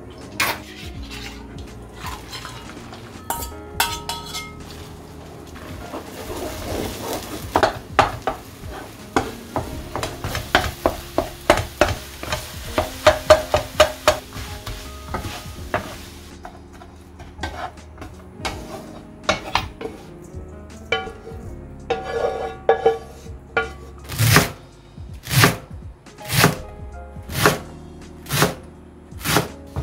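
Beaten eggs sizzling as they scramble in an oiled frying pan, with a spatula tapping and scraping the pan. Near the end, a kitchen knife chopping garlic chives on a cutting board, about one stroke a second. Light background music underneath.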